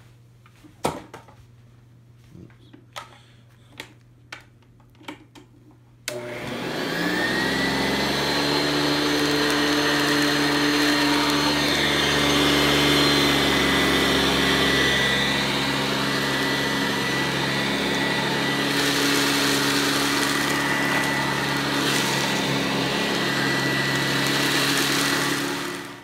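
A few sharp clicks, then about six seconds in a Hoover Convertible U4345 upright vacuum cleaner switches on. Its motor winds up in pitch over a couple of seconds and then runs steadily and loudly during a paper-pickup test, with a stretch of extra hiss partway through.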